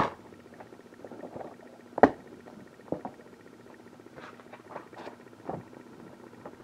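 Handling noise as the paper guides are taken out of plastic DVD cases. A sharp click comes at the start, a louder knock about two seconds in and another about a second later, then lighter taps and rustling.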